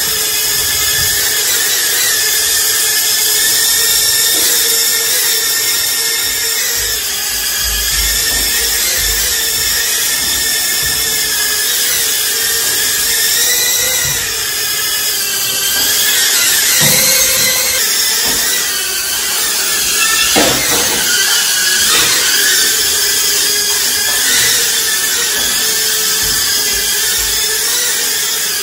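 Toy RC quadcopter drone in flight: its small electric motors and propellers give a high-pitched whine whose pitch wavers up and down as the throttle changes. A couple of brief knocks come about two-thirds of the way through.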